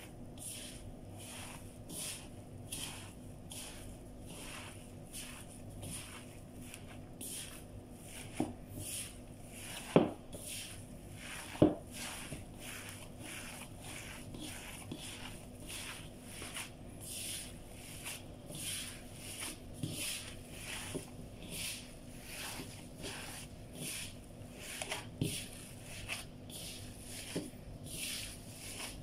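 Gloved hands kneading raw ground-meat mixture in a bowl: rhythmic squishing and scraping about twice a second, with a few sharp knocks, the two loudest about ten and twelve seconds in.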